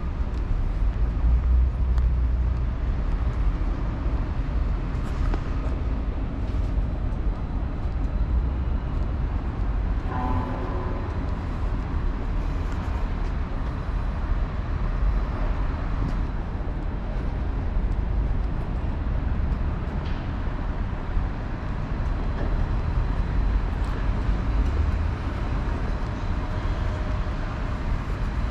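Steady city traffic noise: a continuous low rumble of passing vehicles, with a brief pitched sound about ten seconds in.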